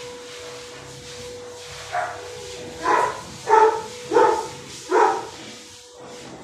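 A dog barking five times in quick succession, starting about two seconds in, the barks a little under a second apart.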